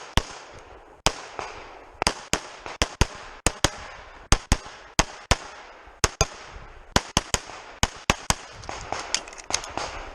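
Pistol fire during a timed USPSA stage: about two dozen rapid shots, many in quick pairs with short pauses between them as the shooter moves from target to target.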